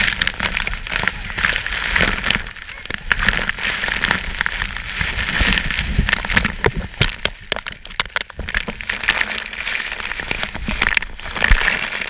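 Heavy waterfall spray and falling water beating on the camera: a loud, dense crackling patter of drops hitting close to the microphone over the steady rush of the falls.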